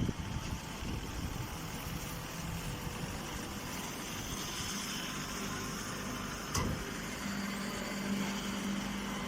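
A machine or engine running steadily, with a sharp click about six and a half seconds in and a steady hum that joins shortly after.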